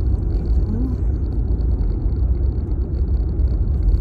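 Steady low road and engine rumble heard inside the cabin of a moving car.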